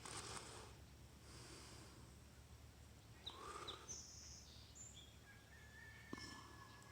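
Quiet outdoor ambience by the water: a low steady rumble with a few faint, short, high chirps and a thin whistle, soft breathy puffs close to the microphone, and a single sharp click about six seconds in.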